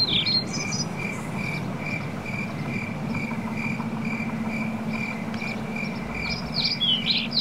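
Cricket chirping at an even pace, about two chirps a second, with short high bird-like chirps at the start and near the end. A low steady hum joins about three seconds in.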